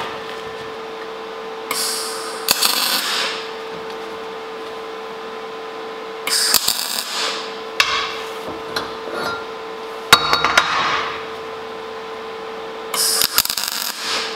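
MIG welder striking short tack welds on a steel tube joint: four brief bursts of arc crackle, each about a second long, a few seconds apart.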